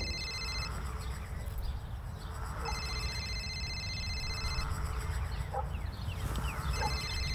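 A phone ringing: an electronic trilling ring about two seconds long, repeated after a pause of about two seconds. The end of one ring comes first, then a full ring, then another ring begins near the end. Faint short chirps sound beneath.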